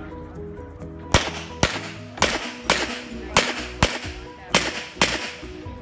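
Handgun shots fired at a practical shooting stage, about eight in pairs about half a second apart, the double taps typical of two hits per target. Background music runs underneath.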